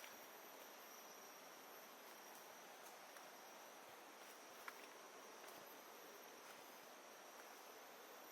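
Faint, steady insect chorus in tropical jungle: two constant high-pitched buzzing tones over a soft, even hiss, with a few light clicks, the clearest about halfway through.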